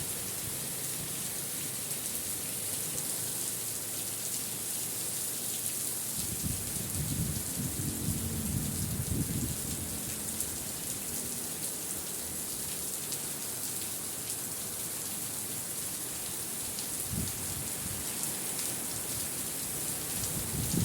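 Steady hiss of heavy rain falling in a windy storm. Irregular low rumbles come and go, the longest about a third of the way through.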